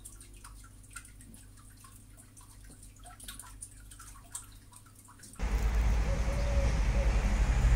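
Faint, irregular clicks of a computer mouse being worked. About five seconds in, these give way to louder outdoor noise: wind rumbling on the microphone over road traffic.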